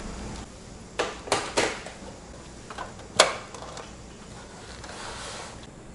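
A few knocks and clicks from gloved hands handling the power cable and metal parts of an open desktop computer case. Three knocks come about a second in, and the sharpest click about three seconds in.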